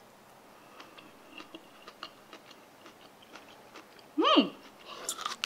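A person chewing crisp canned kimchi cabbage: faint clicks and small crunches, a short hummed "mm" about four seconds in, then louder crunchy chewing near the end.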